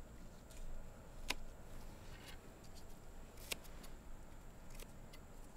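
Florist's scissors snipping ranunculus stems: two sharp snips about two seconds apart, with a few fainter clicks between them.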